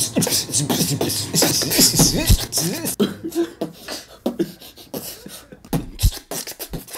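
A man beatboxing: rapid vocal percussion clicks and hisses mixed with sung, sliding vocal tones, dense and loud for about the first three seconds, then sparser.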